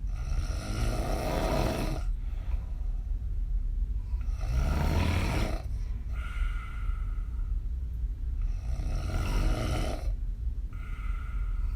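A woman snoring hard on her back with her mouth open. A loud rasping snore comes about every four seconds, each followed by a softer breath, with three breath cycles in all.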